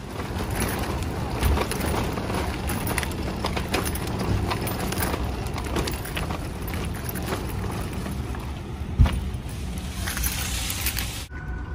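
Metal shopping cart rolling over pavement: a steady rumble of the wheels with the wire basket and its load rattling and clicking, and one sharp knock about nine seconds in. It stops suddenly near the end.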